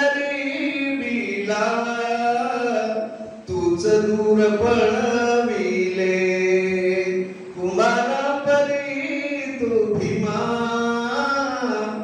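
A man singing a slow, drawn-out melody into a handheld microphone, holding long notes that slide between pitches. Three phrases, with short breaks for breath about three and a half and seven and a half seconds in.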